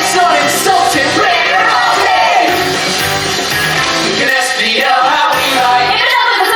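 Stage show music: a musical theatre number sung with band accompaniment.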